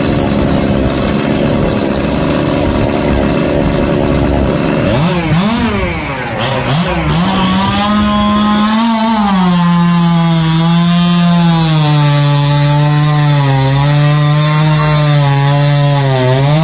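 Modified stock two-stroke chainsaw, 85cc class, revved up and down about five seconds in, then run at full throttle into a large log; its pitch drops and holds lower as it labours through the cut, then rises again near the end as the cut finishes.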